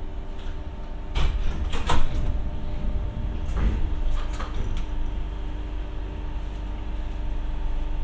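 Renfe Class 447 electric commuter train standing in the station, its equipment giving a steady hum over a low rumble. Several sharp clunks and knocks come about a second in, the loudest near two seconds, and a second group follows around four seconds.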